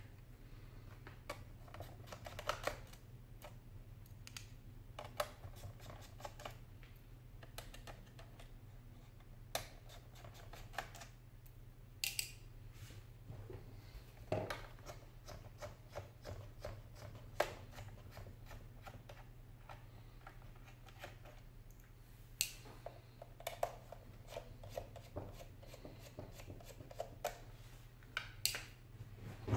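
Faint, scattered light clicks, taps and short scrapes of a screwdriver and small parts being handled on a wooden desk, over a steady low hum.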